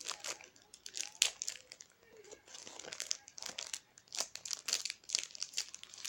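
Foil wrapper of a football trading-card pack crinkling and tearing as it is handled and opened, in a string of irregular crackles.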